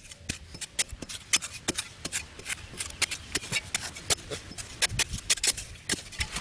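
A quick, irregular series of sharp clicks and light rubbing, several a second.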